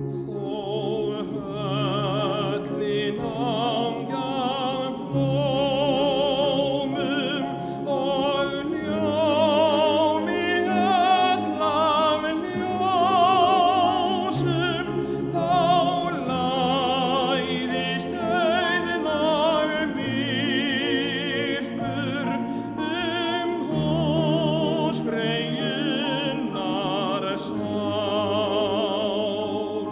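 Recorded music by an Icelandic male voice choir: operatic singing with wide vibrato over accompaniment.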